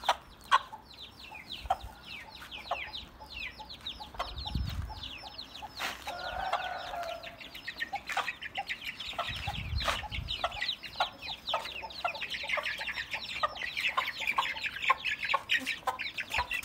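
Aseel chicks peeping in a dense, continuous stream of short falling cheeps, mixed with scattered sharp knocks; the loudest knock comes about half a second in.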